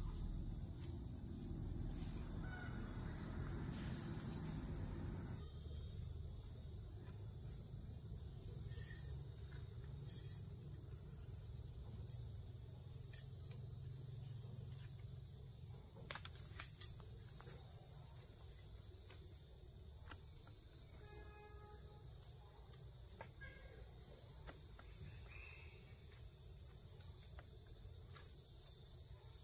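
Insect chorus: a steady, high-pitched drone of chirring insects, with a low background rumble that eases about five seconds in and a few faint short calls.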